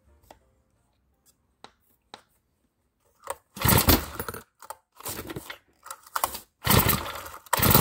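Honda GX35 four-stroke brushcutter engine being pull-started cold on full choke: after a few faint clicks, the recoil starter cord is yanked about four times in quick succession, each pull a short rasping whirr, and on the last pull the engine catches and keeps running. It is the first start with a newly fitted ignition coil replacing a dead one.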